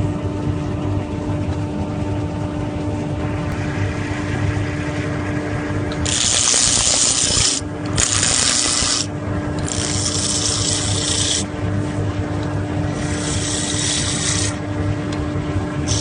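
Wood lathe motor running with a steady hum while a tool is pressed against the spinning wood, scraping in about five separate passes of one to two seconds each, starting about six seconds in.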